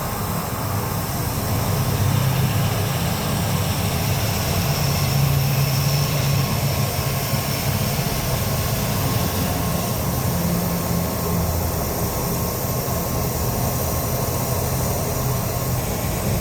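Aeroplane engines running steadily during takeoff, a loud even hum with a low drone underneath.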